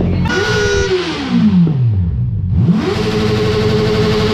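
Honda CB650R's inline-four engine revved twice in neutral: a quick rev that shoots up and falls back toward idle over about two seconds, then a second rev that climbs again and holds steady at high revs near the end.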